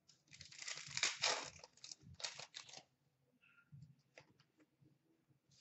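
Plastic trading card pack wrapper being torn open and crinkled for about three seconds, followed by a few light clicks of cards being handled.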